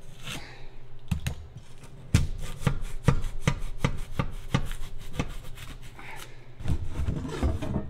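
Snap-off utility knife cutting through expanded polystyrene (EPS) foam insulation board along a metal straightedge, in short repeated strokes about three a second. The strokes pause briefly about five seconds in and resume near the end.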